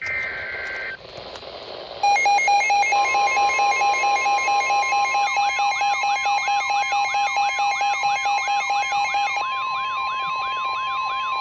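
Electronic emergency alert tones for a flash flood warning. A short high two-pitch tone, then layered pulsing beeps and a steady tone near 1 kHz, the NOAA Weather Radio warning alarm tone. From about five seconds in, a fast siren-like wail of repeating up-and-down sweeps joins, about three a second.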